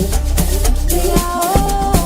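Instrumental passage of a dance track: a deep sustained bass under regular drum and shaker hits, with held high notes that step up in pitch about a second in.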